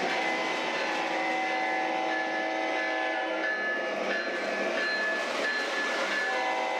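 Sound system of an MTH Premier O-scale CSX AC4400CW model locomotive (Proto-Sound 3.0) playing diesel running sounds with a multi-tone horn chord. The horn sounds for about three and a half seconds, stops, and sounds again near the end.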